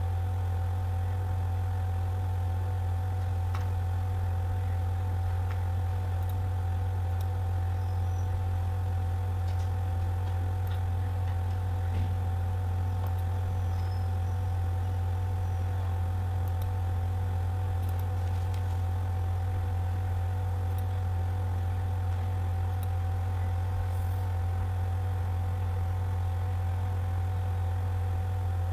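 Steady low hum with fainter steady higher tones over it, and a few faint clicks.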